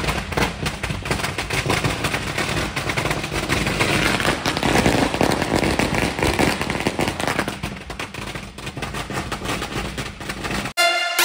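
A long string of firecrackers going off on the road in a rapid, continuous crackle of bangs, heard from inside a car. It cuts off suddenly near the end, and electronic music takes over.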